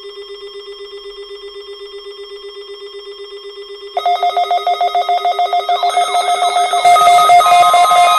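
A steady electronic tone with a quick, even pulse, joined about four seconds in by a louder, higher pulsing tone. More layered, music-like sound comes in near the end.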